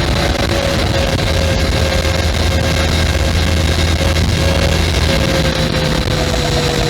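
Benelli 502C's parallel-twin engine running steadily on stock exhaust while riding, with a thin whine that slowly falls in pitch.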